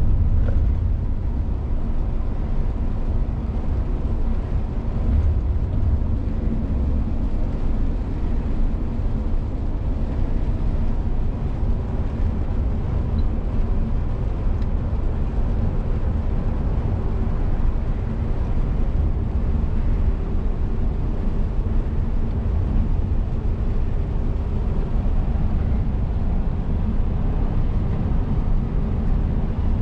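Lorry under way: a steady drone of the diesel engine and rumble of road noise.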